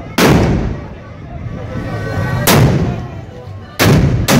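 Traditional mkahla black-powder muskets fired one after another in a baroud salute: four loud shots, the first just after the start, one about two and a half seconds in, and two close together near the end, each trailing off in echo.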